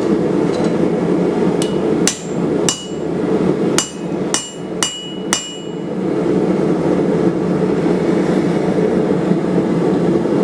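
Hand hammer striking steel on an anvil: about seven ringing blows between about 2 and 5 seconds in. Under them runs a steady loud roar.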